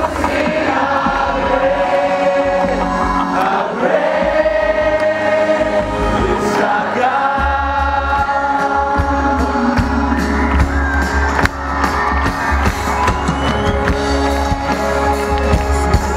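Live worship music: a band with heavy bass and many voices singing together, a large crowd singing along.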